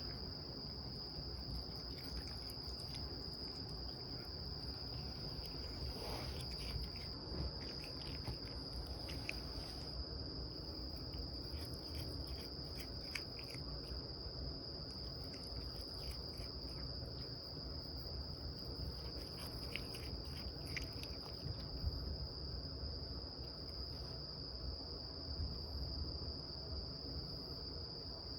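A steady, high-pitched insect trill, as from crickets, with faint scattered clicks over it.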